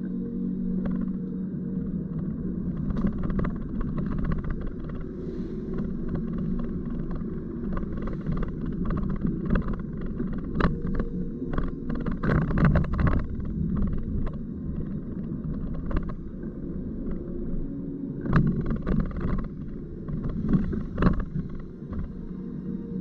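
A car driving: a steady low drone of engine and road noise, with irregular sharp knocks and clicks throughout, thickest in the middle and again near the end.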